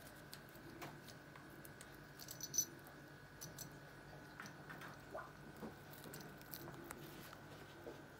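Faint, scattered crunching and clicking of a rosy-faced lovebird's beak tearing and chewing a lettuce leaf, with a brief sharp high-pitched jingle about two and a half seconds in, the loudest moment.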